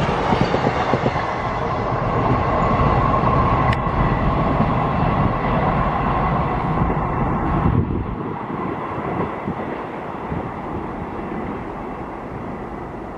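Double-stack container freight train's wagons rumbling along the rails as the tail of the train moves away, with a faint steady ringing tone over it. The sound drops sharply about eight seconds in, leaving a fainter rumble.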